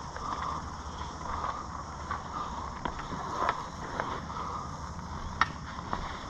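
Steady low rumble of wind on the microphone, with scattered light clicks and taps as a spinning rod and reel are handled.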